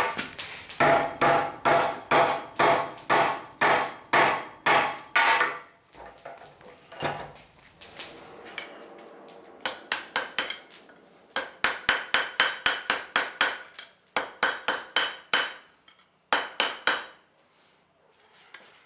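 Hand hammer striking hot steel on an anvil while forging a bend into a hook: a steady run of about two blows a second, a pause with a single blow, then a longer, quicker run of blows with a thin high ring held beneath them.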